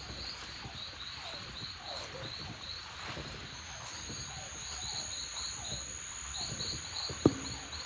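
Tropical insect chorus: a high-pitched insect chirping in quick regular pulses, joined about halfway by a steady high insect buzz, with lower falling chirps repeating beneath and a single sharp click near the end.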